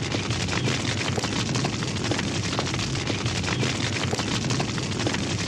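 A large fire roaring steadily, with dense crackling over a low rumble.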